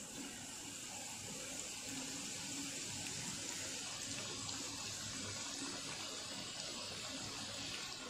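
Strips of chapati deep-frying in hot oil in a kadhai: a steady sizzle of bubbling oil.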